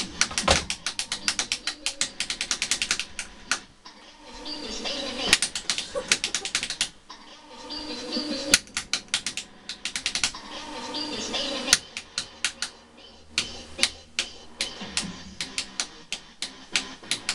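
Wall light switch flicked on and off very fast: a rapid string of sharp clicks, several a second, broken by a few short pauses.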